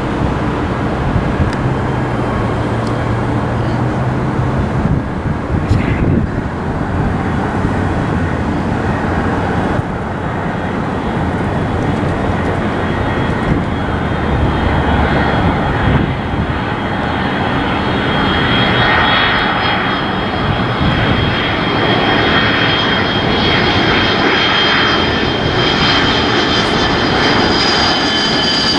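Twin-engine Boeing 767 jet airliner on final approach with gear down, its engine noise slowly growing louder as it nears. A high whine from the engines comes in over the second half.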